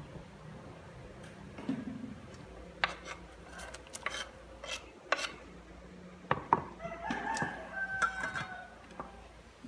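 A knife scraping and tapping fried fish off a wooden cutting board into an aluminium rice-cooker pot, giving a run of sharp clicks and clinks, then the glass lid set on the pot. Near the end, a drawn-out pitched call sounds for about two seconds.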